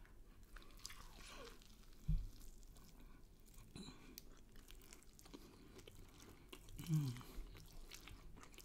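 A person chewing a mouthful of lamb shish close to the microphone, with faint wet mouth clicks. A brief low hum comes about seven seconds in.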